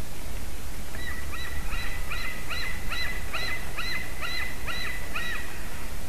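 Common cranes calling in a rapid, evenly spaced series of about a dozen notes, roughly two and a half a second, starting about a second in and stopping near the end, over a steady low background hiss.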